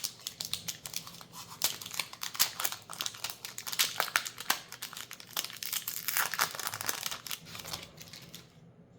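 Foil booster pack wrapper crinkling and crackling as it is torn open and handled, a dense run of small irregular crackles that dies away near the end.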